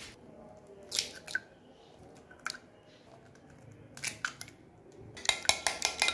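Raw eggs being beaten with a utensil in a bowl: a few scattered clicks, then a fast run of ringing clinks against the bowl from about five seconds in.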